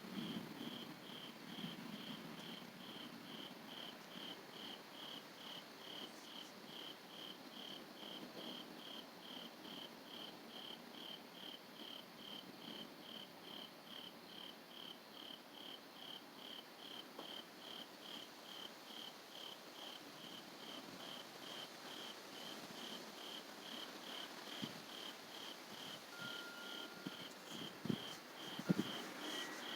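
An insect chirping steadily, about two short high chirps a second. A faint low rumble sounds in the first few seconds, and a few soft knocks come near the end.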